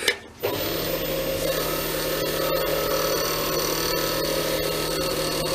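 A click, then a small belt-driven wood lathe switching on about half a second in and running steadily with an even motor hum, spinning a pen blank for its final buff and polish.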